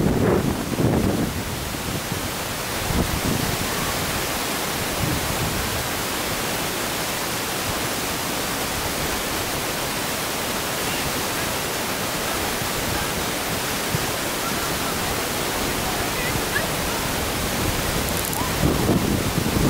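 Wind noise on the camera microphone: a steady hiss, with low buffeting gusts about a second in and again near the end.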